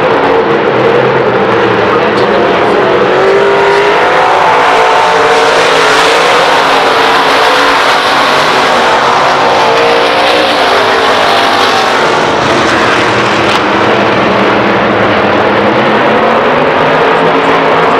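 Dirt-track stock car engines racing at full throttle, loud and steady, their pitch rising and falling as the cars run through the turns.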